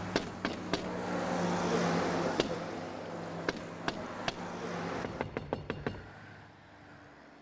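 Steady low hum of a car with scattered sharp taps and knocks, a quick run of them about five seconds in; the hum fades away near the end.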